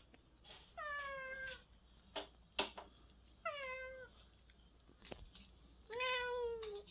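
Domestic cat meowing three times, short calls that each slide slightly down in pitch, the last one the longest. A few sharp clicks sound between the meows.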